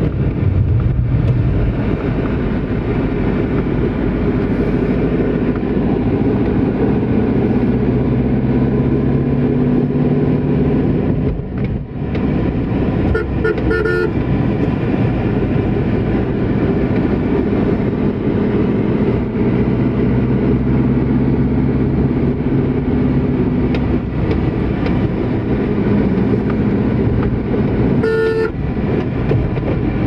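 Steady engine and road noise heard from inside a moving car, with a short burst of vehicle horn toots about 13 seconds in and another near the end.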